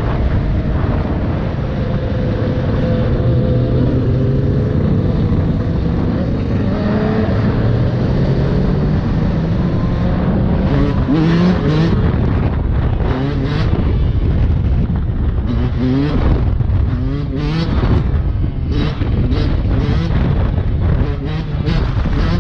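Yamaha YZ125 two-stroke single-cylinder dirt bike engine running under way, heard from on the bike, with a low wind rumble on the microphone. In the second half the engine revs up sharply again and again in rising pitch sweeps.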